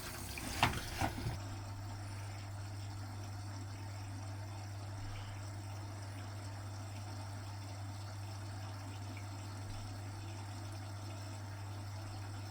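Vintage Frigidaire front-loading washing machine filling with water, with a few clicks about a second in, after which the sound settles into a steady low hum.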